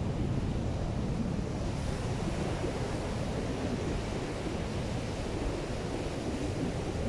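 Ocean surf breaking steadily, with wind buffeting the microphone.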